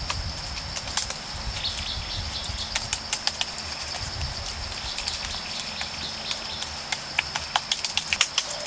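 Wet mud being pressed and patted by hand onto a stick frame: irregular soft slaps and taps, several a second.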